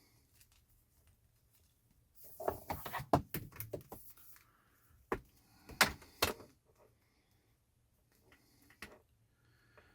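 Plastic clicks and knocks as a USB port's cable and cap are handled and fed through a dash panel. There is a quick cluster of knocks about two seconds in, then a few sharp single clicks around five and six seconds.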